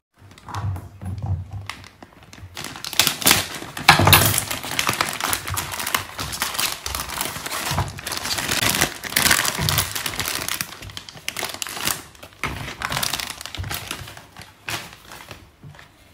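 Irregular crinkling and rustling, with scattered knocks, from things being handled in a kitchen. It thins out near the end.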